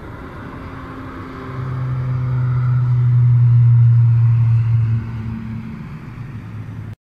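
Airliner taking off and climbing past, its engines at takeoff power making a loud, steady low drone with a strong hum. The drone swells from about a second and a half in, is loudest around three to four seconds, drops off after five seconds and ends abruptly.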